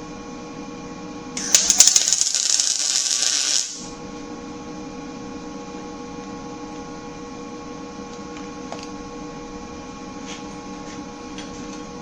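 An electric arc welder crackling in a short weld of a little over two seconds, starting about a second and a half in and stopping sharply, over a steady electrical hum; a few faint light ticks follow near the end.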